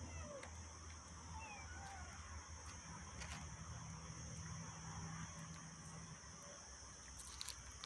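Steady, faint, high-pitched insect buzz, with a few short bird chirps in the first couple of seconds and scattered light clicks.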